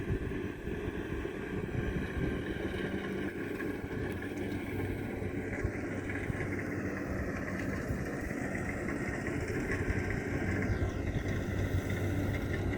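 Kubota DC70 combine harvester's diesel engine running steadily as it wades through a flooded rice paddy, a continuous drone with no change in pace.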